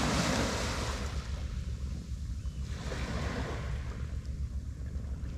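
Small waves washing onto a sandy beach. The wash swells right at the start and again about three seconds in, over a steady rumble of wind on the microphone.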